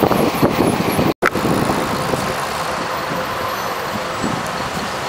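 Wind buffeting the microphone of a moving bicycle rider, cut off abruptly about a second in, then a steady rush of road traffic from cars and buses on the avenue alongside.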